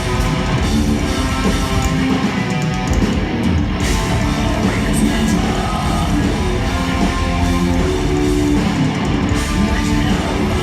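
Heavy metal music with electric guitars and drums, playing steadily and loudly.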